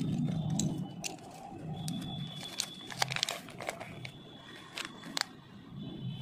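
Paper instruction leaflet and thin wrapper crinkling and rustling as they are handled and unfolded, with scattered sharp clicks and crackles, a cluster about three seconds in and another near five seconds.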